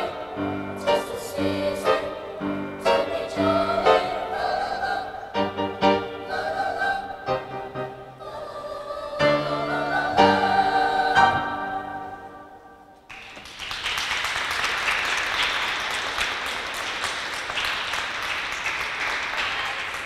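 Middle school choir singing with upright piano accompaniment, the final chord fading out about thirteen seconds in. The audience then applauds.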